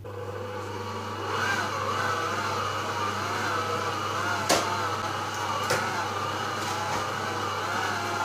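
Stand mixer motor running as its dough hook kneads stiff bread dough in a steel bowl. Its whine wavers up and down and gets louder about a second in. Two sharp clicks come a little over a second apart near the middle.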